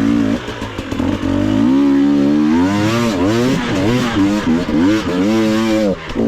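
Enduro dirt bike engine revving hard, its pitch rising and falling again and again as the throttle is worked on a climb.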